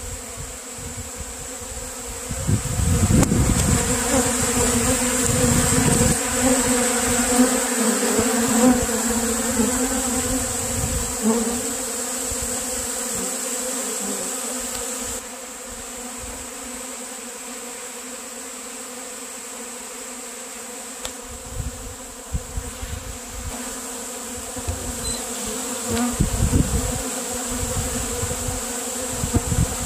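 Dense, steady buzzing of a large cloud of honeybees in a robbing frenzy over combs of crystallized honey, with some low rumbling now and then.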